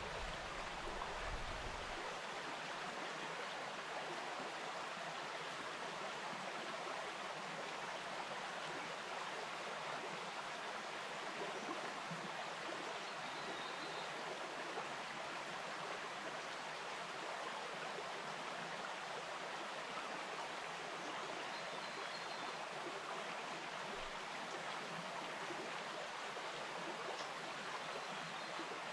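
Bush stream running steadily, an even rush of flowing water. A low rumble underneath stops about two seconds in.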